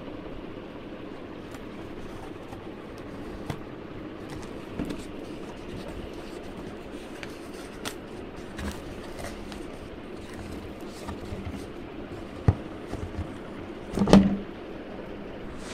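Hands opening a stapled cardboard box: scattered clicks and scrapes of cardboard and staples, with a sharp click and then a louder rustle of cardboard flaps being pulled open near the end, over a steady background hum.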